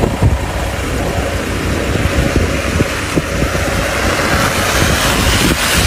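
A steady low rumble with wind buffeting the microphone, broken by frequent short, irregular thumps.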